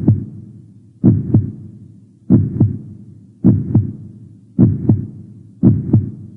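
Heartbeat sound effect: slow, loud double thumps in a lub-dub pattern, one pair about every second, six pairs in all.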